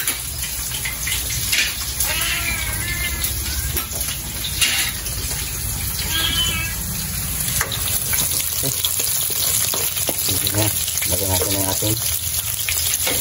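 Sliced shallots and garlic sizzling in hot oil in a wok, stirred with a spatula, over a steady hiss that is there throughout and grows a little louder about halfway in.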